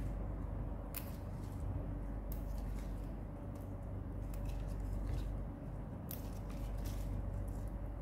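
Fresh arugula (gergir) being sorted by hand in a plastic bowl: irregular crisp snaps as stems are pinched off, with the rustle of leaves. A steady low hum runs underneath.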